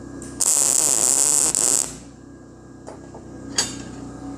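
A welding arc struck for about a second and a half, a short tack on steel plate, with a hissing crackle that starts and stops abruptly after a brief blip. Two sharp clicks follow.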